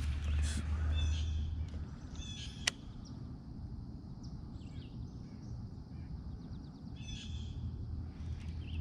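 A bird calling outdoors in short repeated calls, about four times, over a low steady rumble, with two sharp clicks, one at the start and one a little under three seconds in.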